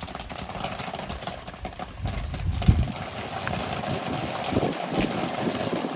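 Irregular knocks and clicks as the dipstick cap is put into the oil filler neck of a Honda GX390 engine and screwed in by hand, over a steady rustling background. The engine is not running.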